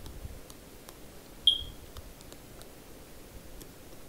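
Faint soft clicks and small pops of a finger poking into thick, puffy slime, with one short high-pitched chirp about a second and a half in.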